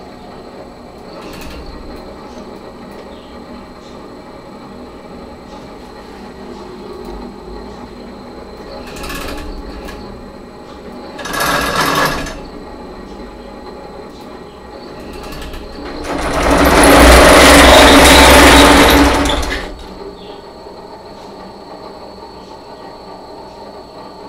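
Servo motors of a homebuilt pipe-gantry CNC router driving its Acme lead screws through nylon nuts as it runs a program: a steady low whir, a short burst of faster movement about halfway, and a louder move lasting about three seconds late on.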